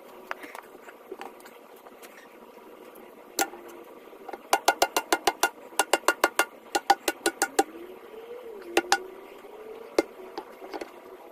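Hammer blows on metal, each one ringing. They come in quick runs of about five blows a second in the middle, with a few single strikes before and after.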